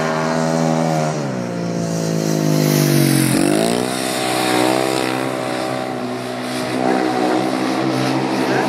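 Speedway motorcycle's single-cylinder engine running hard as the bike circles the dirt oval. Its revs drop about a second in and fall again to their lowest just past three seconds, then climb back up and hold fairly steady, sagging briefly near the end.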